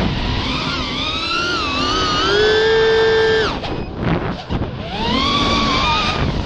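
Racing drone's electric motors and propellers whining, the pitch rising and falling with the throttle. About three and a half seconds in the whine drops away sharply into a choppy rush as the drone rolls inverted, then climbs back as it powers out.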